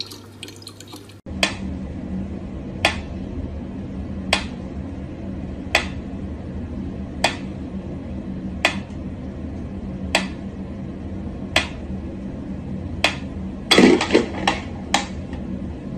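Sharp clicks or knocks repeating evenly about every one and a half seconds over a steady low hum, starting about a second in, with a quicker cluster of knocks near the end.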